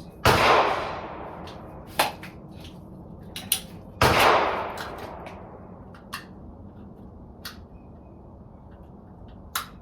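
Two loud gunshots about four seconds apart, each followed by a long fading reverberation. Between and after them come several shorter, fainter sharp cracks.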